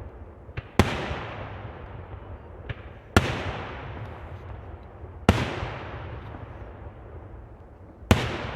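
Fireworks going off: four loud bangs spaced two to three seconds apart, each followed by a long echoing rumble that fades away, with smaller pops just before the first two.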